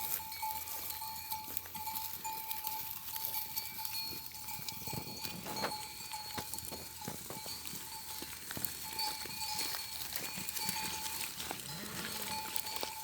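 Grazing goats and sheep with neck bells clinking irregularly as they move, over a steady high-pitched tone. A brief low animal call comes near the end.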